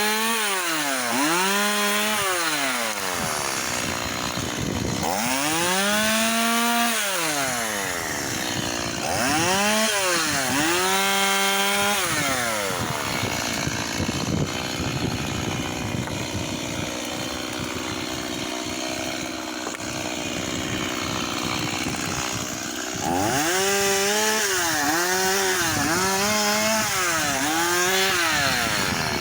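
Chainsaw cutting firewood: its two-stroke engine revs up and then drops in pitch as the chain bites into the wood, over and over. The middle stretch runs steadier, and near the end comes a quick series of short revs.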